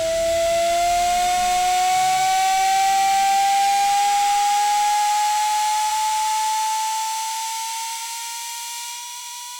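Electric motor of an operating table running, its whine rising slowly and steadily in pitch. It grows quieter over the last few seconds.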